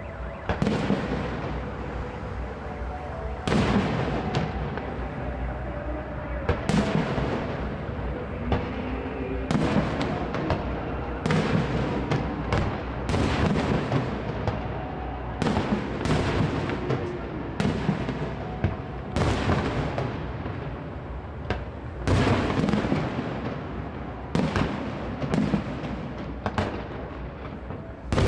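Aerial firework shells bursting in a fireworks display: a steady run of sharp bangs, roughly one a second and sometimes two close together, each with a short ringing tail.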